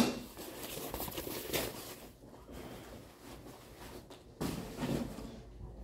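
Foam packing sheet rustling and crinkling as a car wing is unwrapped by hand, with a brief knock and louder rustle about four and a half seconds in.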